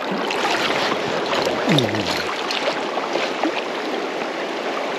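Shallow river water rushing and splashing close to the microphone, with many small splashes through it, as a landed trout is held in the current for release. A short, low falling voice sound about two seconds in.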